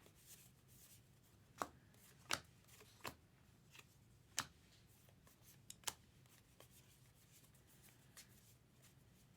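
Trading cards being flipped and slid through the hands, with about half a dozen sharp card snaps and flicks spread across a few seconds over a faint low hum.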